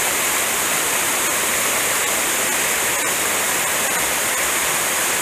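Small mountain waterfall pouring down a rock face into a shallow plunge pool: a steady rush of falling water.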